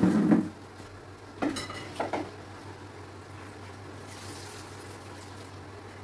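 Dishes and a bowl handled at a kitchen sink: a heavy knock at the start, then two ringing clatters about one and a half and two seconds in. A faint hiss follows later, over a steady low hum.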